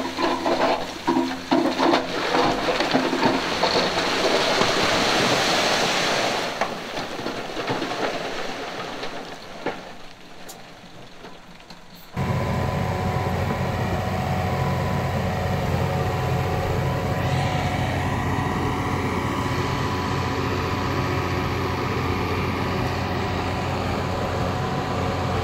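A heavy diesel construction machine running. For the first several seconds a loud rushing, rattling noise sits over the engine, then fades. About halfway through, an abrupt cut brings in a steady heavy diesel engine note.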